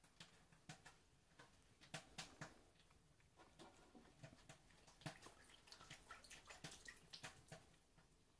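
A cat drinking from a metal bowl of water: faint, irregular little splashes and drips, several a second.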